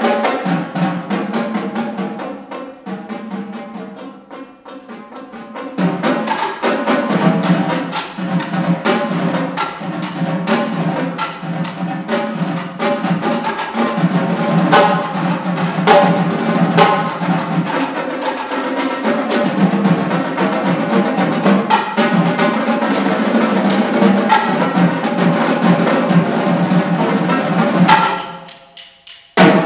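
Three marching tenor drums (multi-tenors) played with sticks in a fast, dense stream of strokes. The playing turns quieter a couple of seconds in and builds back to full about six seconds in. Near the end it stops suddenly after a heavy hit, and one last sharp accent follows.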